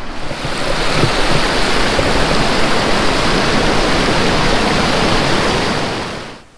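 Rushing white water of the Chattooga River, loud and steady; it stops suddenly near the end.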